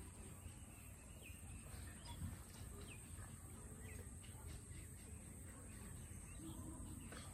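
Faint outdoor ambience with scattered short bird chirps over a low rumble, and a steady high-pitched tone.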